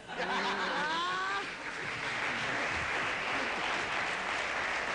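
Studio audience reacting to a joke's punchline: a burst of laughing voices in the first second and a half, then steady applause.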